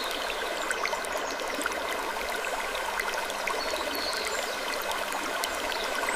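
Looped sleep-ambience track: a steady rushing, water-like hiss dotted with many small clicks and a few faint creaks.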